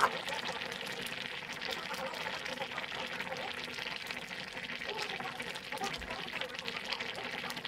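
Chicken, potato and broth simmering uncovered in a pan, a steady bubbling with many small crackles and pops.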